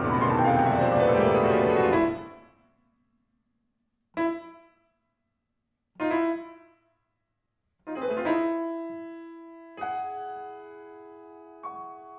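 Solo piano playing a dense, fast downward run of notes that is cut off abruptly about two seconds in. After a pause come two short, separate notes, then chords that are held and ring out slowly while new notes are added over them.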